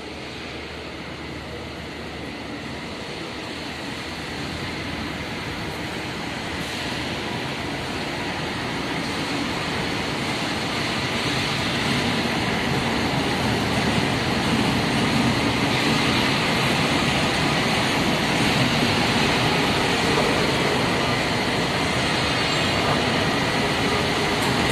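Steady industrial workshop machinery noise, a dense mechanical hiss and drone with faint whining tones, slowly getting louder.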